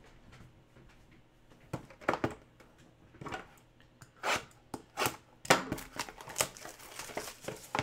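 Plastic shrink wrap on a cardboard trading-card hobby box being cut and pulled off by hand, heard as a string of short, separate noises.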